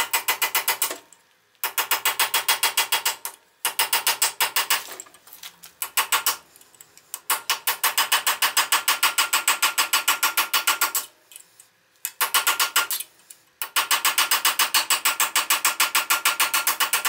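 Pneumatic air hammer driving a cape chisel into a steel shaft held in a vise, chattering with rapid strikes, more than ten a second, in bursts of one to four seconds with short pauses between. The chisel is cutting a slot down the shaft, its corners just starting to bite.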